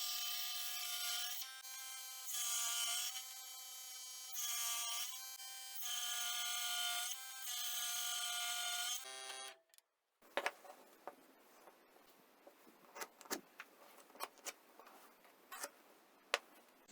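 An electric power tool's motor runs with a steady whine, getting louder and softer every second or two as it works, then cuts off suddenly about nine and a half seconds in. Light taps, clicks and scraping from handling the workpiece follow.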